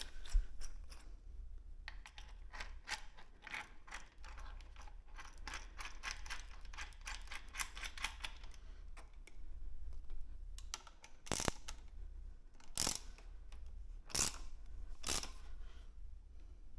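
Hand ratchet wrench tightening a motorcycle frame slider bolt: a run of quick, even clicks for several seconds, then a few separate, louder sharp clicks.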